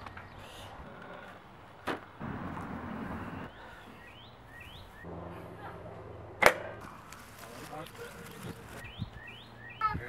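An extension cord's plug snapping out of an outdoor wall outlet as the cord is yanked: one sharp, loud snap about six and a half seconds in, after a fainter click about two seconds in. Birds chirp briefly in between.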